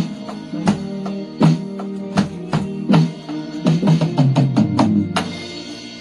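Roland electronic drum kit played along with a pop song recording: a steady beat, then a quick fill of rapid hits about three and a half seconds in, closing on a cymbal crash about five seconds in that rings on under the song's last notes.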